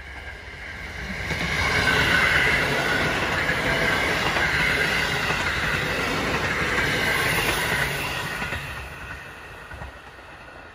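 JR Hokkaido 721 series electric train passing close by. Its running noise builds over the first two seconds as it approaches, stays loud while the cars go past, and fades away after about eight seconds.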